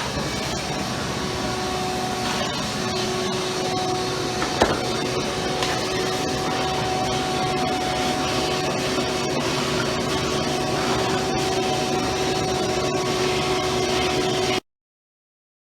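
A small high-speed motor running steadily with a constant whine over a rushing hiss, with one sharp click about four and a half seconds in; the sound cuts off suddenly near the end.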